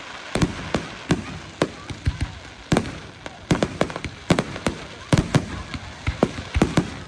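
Fireworks display going off: a rapid, irregular series of sharp bangs and cracks, several a second at times.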